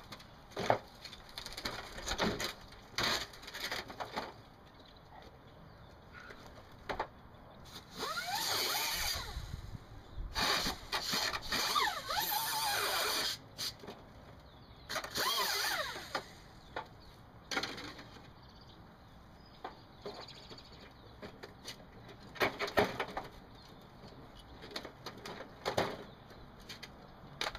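Air-powered cutting tool cutting through old car-body sheet metal in three bursts of a couple of seconds each, its pitch wavering under load. Knocks and clanks of metal being handled come before and after.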